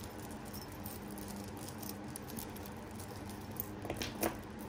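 Beaded necklace and other costume jewelry being handled, the beads clicking and rattling softly against each other, with a couple of sharper clicks near the end.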